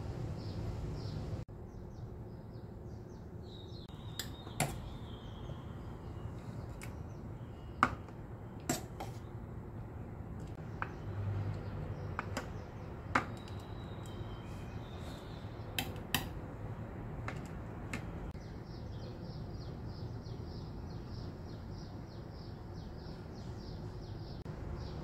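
A metal spoon tapping and scraping against a plastic ice cube tray as thick paste is spooned into its compartments: a scatter of sharp clicks, the loudest about eight seconds in.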